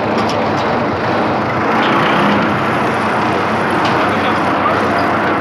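A small open vehicle's engine running steadily while driving, with road and rattle noise heard from on board.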